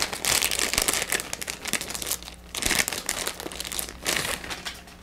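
Thin clear plastic bag crinkling and rustling in the hands as a remote control is pulled out of it. Dense crinkling for the first couple of seconds, a brief pause about halfway, then a few shorter rustles that thin out near the end.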